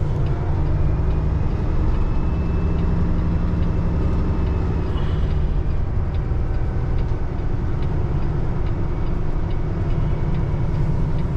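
Cummins ISX15 diesel in a Peterbilt 579 semi truck running steadily at low speed as the truck pulls out, heard from inside the cab.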